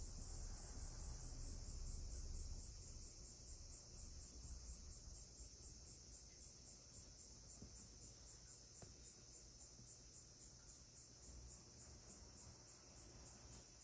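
Faint, steady high-pitched chirring of insects, pulsing evenly, over a low hum that eases off a couple of seconds in.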